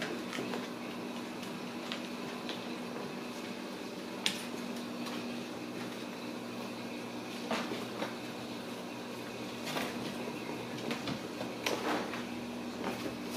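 Kittens playing with toys on a tile floor: scattered light clicks and clatters of toys and paws on the tile and cardboard, over a steady hum.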